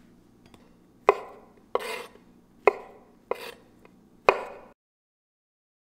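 Chef's knife slicing shiitake mushrooms on a wooden cutting board: five strokes a little under a second apart, sharp knocks of the blade on the board alternating with longer, softer cuts. The sound cuts off suddenly near the end.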